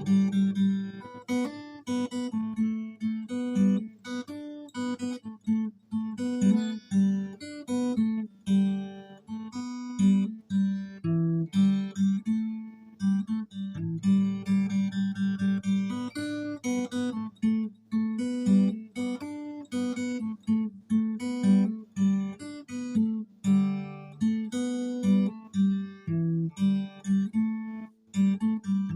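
Solo acoustic guitar playing, plucked and strummed notes with a low note ringing again and again.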